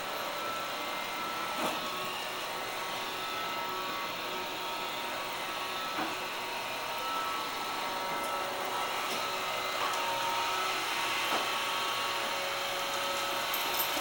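Roomba robot vacuum running: a steady whir with a few thin steady tones above it, and a few light clicks now and then.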